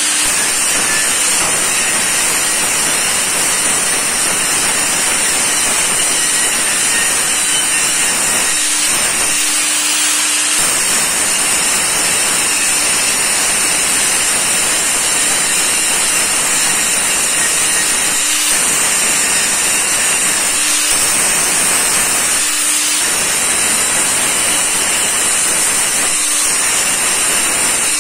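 Handheld electric angle grinder with an abrasive disc grinding welded stainless steel square tubing: a loud, steady grinding hiss. A faint humming tone breaks through briefly about seven times.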